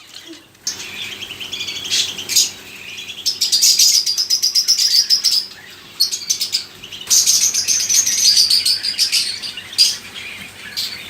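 Many caged birds, parrots among them, chirping and chattering at once in rapid overlapping calls that ease off briefly twice. A faint steady hum runs underneath.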